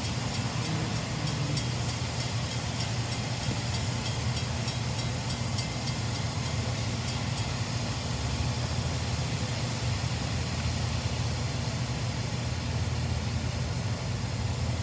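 Approaching freight train's diesel locomotives giving a steady low rumble from down the line, while the grade-crossing bell dings in a quick regular rhythm through the first half as the gates lower.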